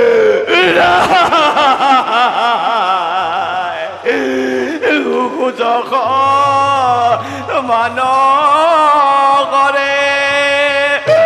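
Bhaona devotional singing: a solo voice chanting a slow melody with heavy, wavering vibrato. It breaks off briefly about four seconds in, then goes on, over a low steady hum.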